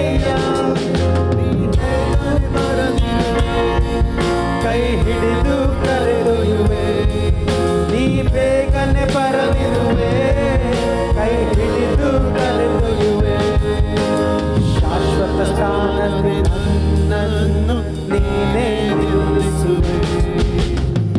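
Christian worship song sung in Kannada: a solo voice singing the melody over a band with steady bass and a drum beat.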